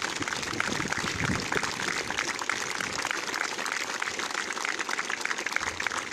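Large body of army cadets on parade applauding: many hands clapping steadily together.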